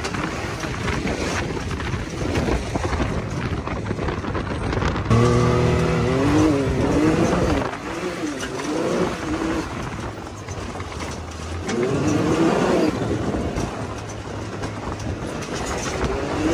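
Can-Am Maverick X3 Max XRS Turbo RR side-by-side under way, its turbocharged three-cylinder engine revving up and down with the throttle over steady wind and drivetrain noise. It gets louder with hard revving about five seconds in and again near the twelve-second mark.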